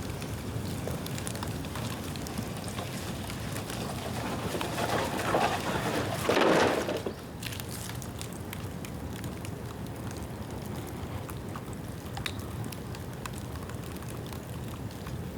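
Bamboo bonfire crackling, with scattered sharp pops over a steady rushing hiss. A louder rush of flame noise swells for about two seconds around the middle, then drops back.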